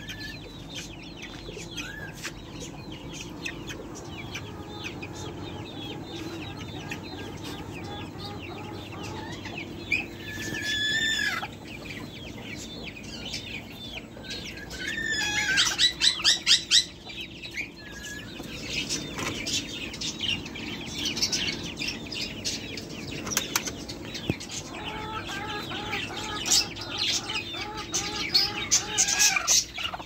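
Domestic chickens clucking over a steady low hum, with louder repeated calls about ten seconds in, the loudest stretch around fifteen to seventeen seconds, and another busy run near the end.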